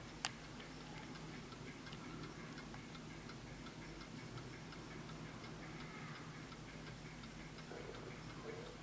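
Antique French miniature Vincent mantel clock from about 1855 ticking faintly and steadily as its pendulum swings, with one sharper click about a quarter second in.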